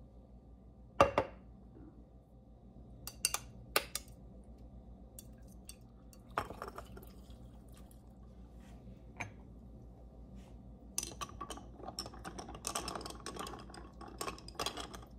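Kitchen dishes and utensils being handled: a sharp knock about a second in, a few clicks, then a busy run of small clinks and rattles near the end.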